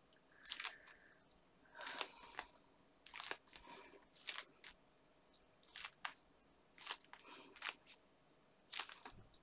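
Faint, short rustles and small taps of fingers pressing and shifting on a folded card stock pop-up card held shut while the glue sets, about one a second with quiet gaps between.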